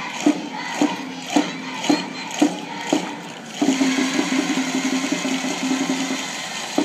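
A drum struck steadily about twice a second, each hit ringing, then a fast drum roll from about halfway, closed by a single hit at the end: the beat of a school cheer section's drum.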